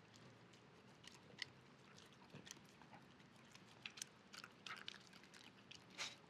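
Shiba Inu chewing and biting off grass or garden plants: quiet, irregular crisp crunching ticks, with a louder one near the end.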